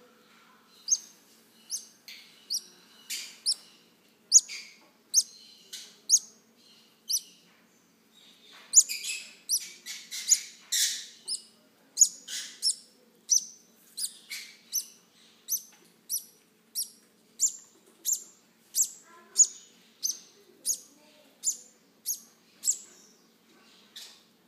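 Baby green-cheeked conure chicks calling while being hand-fed: a steady series of short, sharp, high chirps, a little more than one a second. A busier stretch of overlapping calls comes about a third of the way in.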